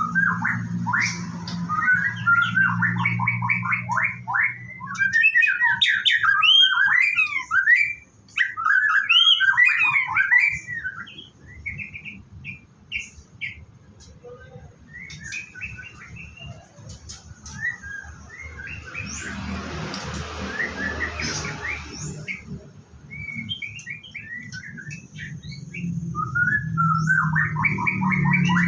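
White-rumped shama singing a rapid, varied run of whistles and chirps, thinning out after about ten seconds and picking up again near the end. A short rush of noise comes about twenty seconds in.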